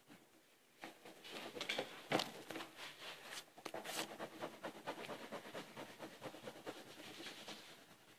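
Yellow wax crayon shading rapidly back and forth on paper, a fast run of scratchy strokes, several a second. It starts about a second in and trails off near the end.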